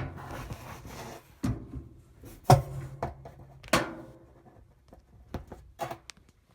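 A series of knocks and bumps from handling the washer or the camera, about six in all, the loudest about two and a half seconds in, over a low rumble that fades away.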